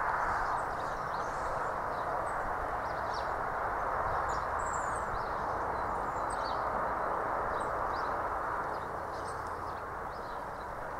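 Small birds chirping and tweeting in short scattered calls over a steady rushing noise that eases a little near the end.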